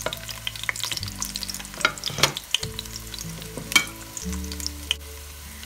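Garlic cloves, dried guindilla chillies and slices of bread frying in olive oil in a steel pan: a light sizzle with scattered crackling pops as the bread goes into the hot oil.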